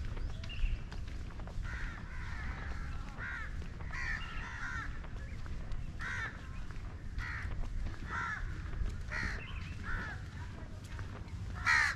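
Birds calling over and over, short calls about once a second with the loudest near the end, over a low steady rumble.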